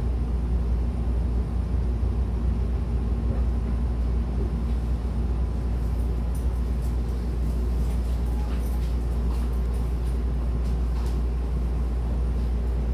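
Inside a Hankyu Kyoto Line train car as it slows along the platform into its terminus: a steady low rumble from the running gear, with a few faint high squeaks in the second half.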